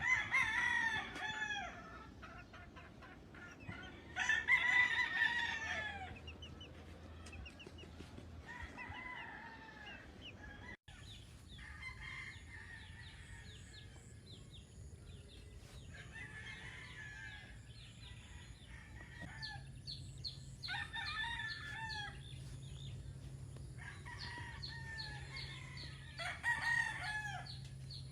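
Roosters crowing again and again: two loud crows in the first few seconds, then quieter crows from several birds, with a louder crow near the end.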